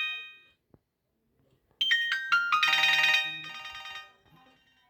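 Nokia 1280 phone playing short electronic alert tones through its speaker: one tone fades out just at the start, and another begins about two seconds in with a quick run of falling notes into a chord that dies away about two seconds later.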